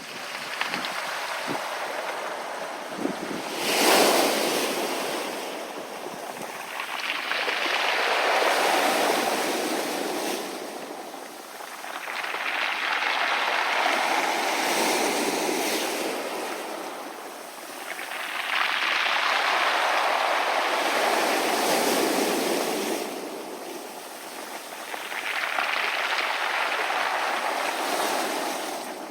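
Sea waves surging onto a rounded-pebble beach and washing back over the stones, swelling and fading in about five sets, one every five to six seconds. The sharpest, loudest crash comes about four seconds in.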